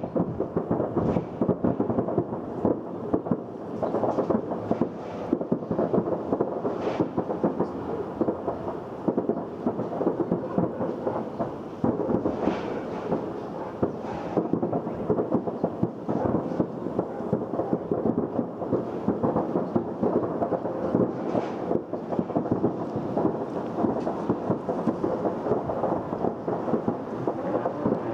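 Fireworks set off by an explosion, going off en masse: a continuous dense crackle of many overlapping bangs and pops.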